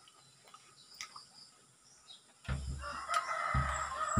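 A rooster crowing: one long crow that starts a little past halfway. A few low thumps sound along with it.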